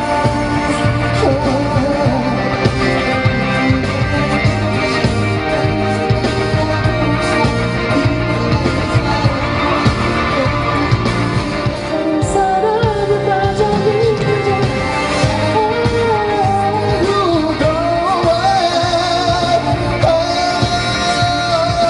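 Pop song with a male voice singing over a band with a steady beat; the vocal melody comes forward about halfway through.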